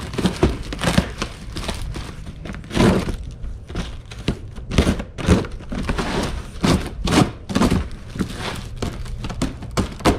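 Cardboard shipping box being opened by hand: packing tape cut and peeled, flaps torn open, with irregular crinkling and tearing and dull knocks against the box.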